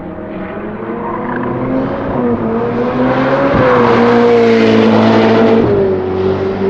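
Ferrari 488 GTB's twin-turbocharged V8 accelerating hard. Its pitch climbs and drops back at each upshift, and it is loudest as the car passes close by in the middle.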